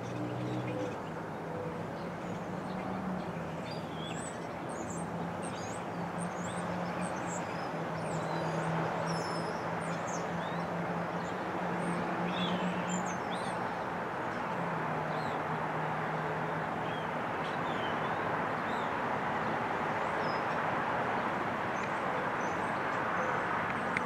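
A flock of small songbirds in a bare tree giving many short, high chirps and calls, scattered throughout, over steady wind noise. A low hum runs underneath for much of the time, dropping out for a moment partway through.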